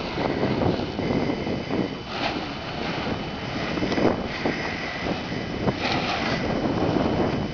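Wind buffeting the microphone: a steady low rush with a few short, louder moments.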